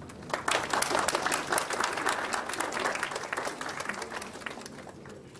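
Audience applauding at the end of a talk, a dense patter of hand claps that starts about half a second in and thins out near the end.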